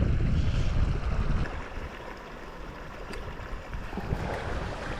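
Steady rushing noise of a shallow river, with a heavier low rumble for the first second and a half before it settles quieter.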